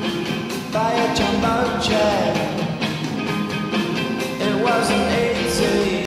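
Rock song with a singing voice, played at full volume as a soccer club's goal celebration music.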